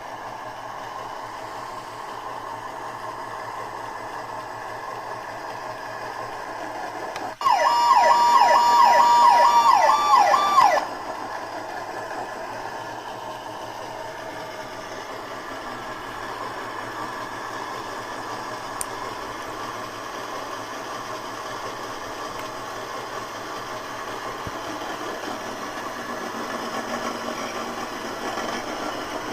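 Electronic toy siren sounding for about three seconds, starting about seven seconds in. It is loud, a fast warbling wail of about three rising sweeps a second over a held note that drops away at the end. A steady hiss runs under the rest.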